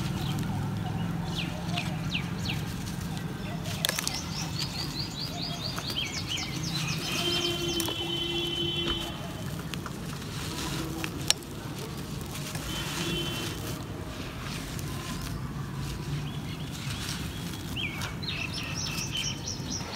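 Dry dirt clods crumbling and breaking in the hands, the crumbs trickling down onto the gritty ground, while small birds chirp in quick runs behind it. A single sharp click about eleven seconds in.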